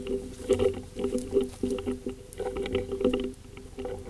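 Basset griffon hound growling in short, repeated bouts at a downed deer, with rustling and scattered clicks from its movement.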